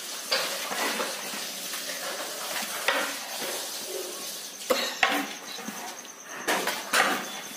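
Long metal spatula scraping and knocking against a large metal cooking pot while onions, tomatoes and spices are stirred, over a steady sizzle of frying. The knocks come irregularly, a handful of sharp clanks, loudest in the second half.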